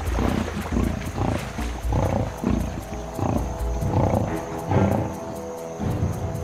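Lions growling over a fresh buffalo kill, in repeated rough bursts about twice a second, with a music score underneath.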